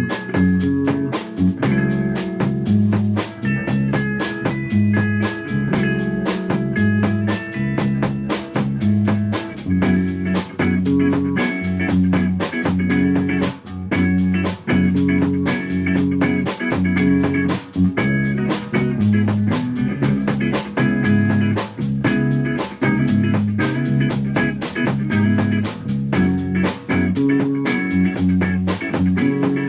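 Rock band playing: guitar over bass and a drum kit keeping a steady, even beat.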